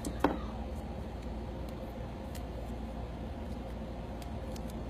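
One sharp snap about a quarter second in as a strip of adhesive tape is handled to secure the new laptop screen, followed by a few faint ticks over a steady low background hum.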